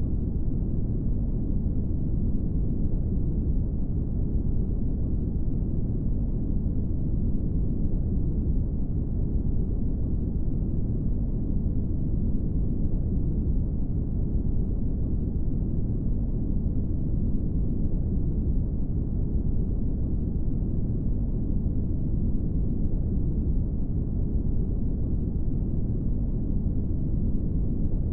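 Brown noise: a steady, even rumbling hiss, strongest in the bass and falling away toward the treble, without any change in level.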